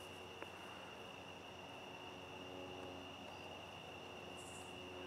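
Faint outdoor evening ambience: a steady, high-pitched insect chorus like crickets, with one soft click about half a second in.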